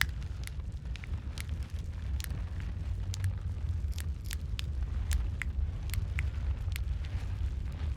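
Wood fire in a fireplace crackling, with irregular sharp pops a few times a second over a steady low rumble of the flames.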